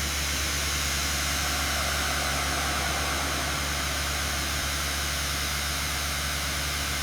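Steady, even hiss over a constant low hum, the noise of machinery running without change.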